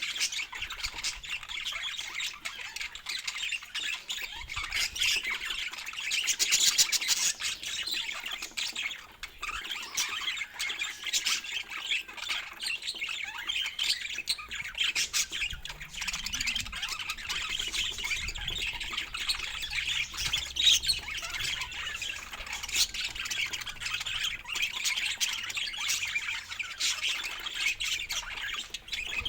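Budgerigars chattering and squawking without a break, a dense run of rapid warbles and chirps, a little louder about six seconds in.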